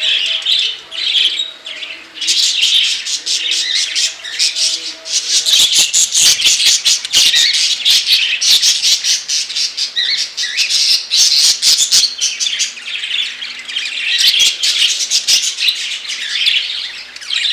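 A flock of caged budgerigars and cockatiels chattering and squawking together in a continuous, overlapping din of sharp calls.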